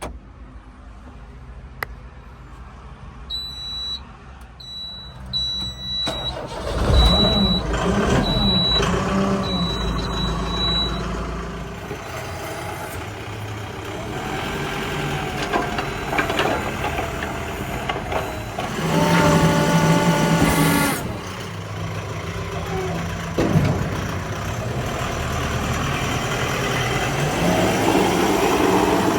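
Mahindra backhoe loader's diesel engine running and revving as it works, with a reversing alarm beeping about once a second from about three seconds in for some eight seconds. A louder burst of engine and machine sound comes about two-thirds of the way through.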